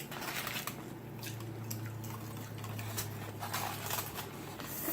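Chewing a mouthful of burger: soft wet mouth sounds and small scattered clicks.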